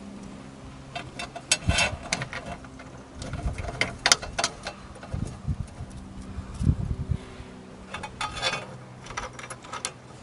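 Irregular clicks, taps and light knocks of hands fitting a plastic cover onto a license plate flipper's motor unit and setting its screws, over a low steady hum.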